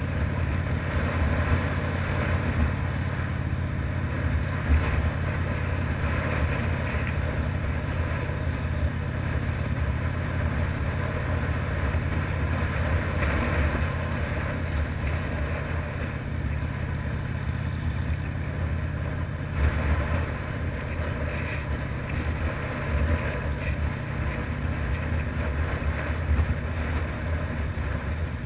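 Harley-Davidson V-twin engine running steadily at cruising speed, a deep low rumble, with wind rushing over the microphone.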